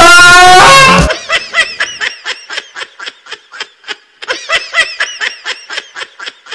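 A loud wailing song over music breaks off about a second in. It gives way to rapid, high-pitched laughter: an even run of short 'ha' pulses, about five a second, with a brief break partway through.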